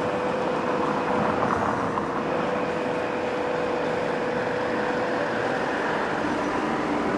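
Audi A6 estate moving off slowly while towing a twin-axle car trailer, its engine running steadily, over a steady hum.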